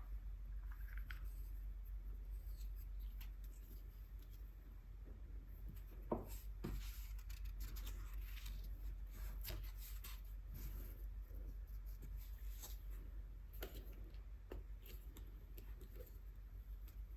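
Quiet scratching strokes and scattered light clicks from hand work with paint, brush and paper while swatching acrylic gouache, over a low steady hum. A sharp click about six seconds in is the loudest sound.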